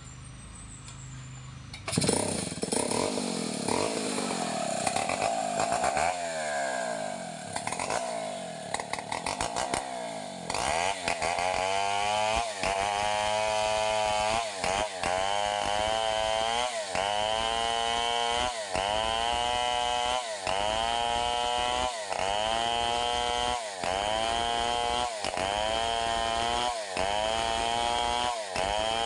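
Stihl 070 two-stroke chainsaw starting up about two seconds in and running with an uneven, wandering engine note. From about ten seconds in it rips along a log, and the engine note rises, holds and dips about every one and a half seconds as the cut loads it.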